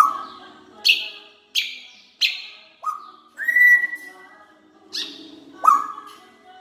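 African grey parrot giving a run of about eight short, sharp calls, each starting suddenly and fading. One longer whistled note comes about three and a half seconds in.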